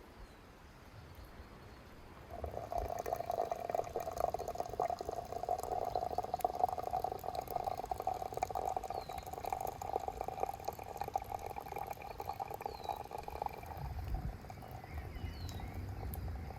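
Water pouring steadily with a fine gurgle, starting about two seconds in and stopping sharply some eleven seconds later.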